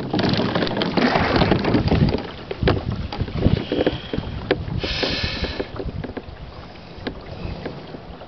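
Rowboat under oars: carbon-fibre oar blades swishing and splashing through calm water with sharp knocks from the oar gear for the first two seconds, then quieter as the boat glides with a few scattered clicks and a short hiss about five seconds in.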